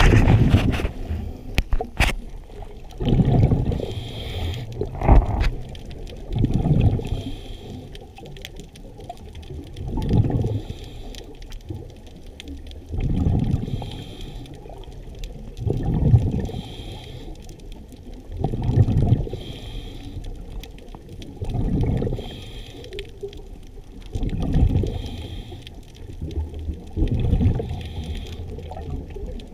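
Scuba diver breathing underwater through a regulator: a bubbling rumble of exhaled air about every three seconds, with a fainter hiss of inhalation between them. A couple of sharp clicks sound in the first two seconds.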